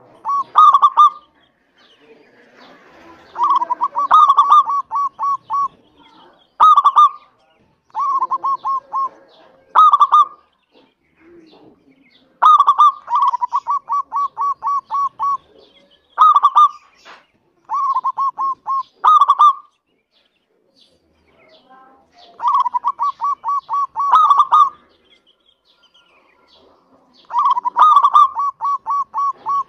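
Local-type zebra dove (perkutut lokal) cooing: a dozen or so phrases, each a stronger opening note followed by a quick run of short, evenly spaced coos, with brief pauses between phrases.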